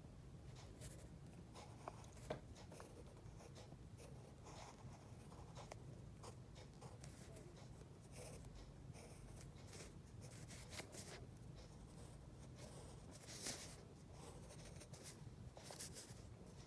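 Faint scratching of a pen on paper, short irregular strokes as fine details are drawn.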